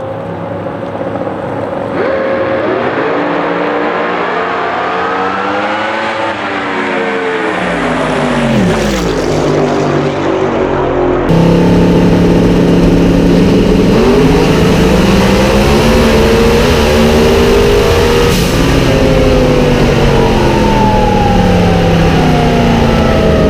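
Drag racing car engine at high revs, its pitch climbing and falling several times. The sound jumps abruptly twice, about two seconds in and again near the middle.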